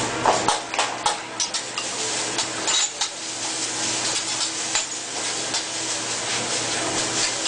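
Metal cooking utensils clinking and scraping on a hot griddle, many quick clanks over a steady sizzle of food frying.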